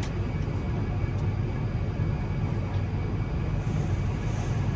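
Tractor engine running steadily from inside the cab, with a low drone, while it drives the grain cart's unloading auger through the PTO. There is a brief click at the very start.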